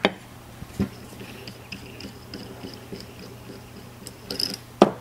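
A few sharp metal clicks and knocks, with faint ticking between them, from the steel dies and threaded arbor of a knockout punch set being handled on a table. The loudest click comes near the end.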